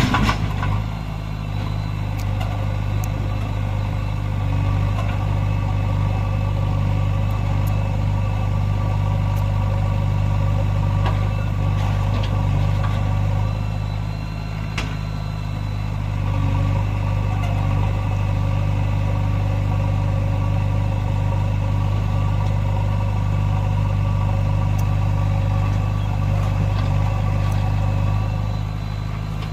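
Heavy diesel engine running steadily at an even low speed, with a sharp click right at the start and a few faint clicks later.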